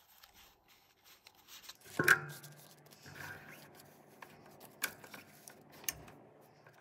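Paper banknotes rustling and being dealt out onto a wooden tabletop in piles, with a few sharp taps as bills land. A louder knock comes about two seconds in.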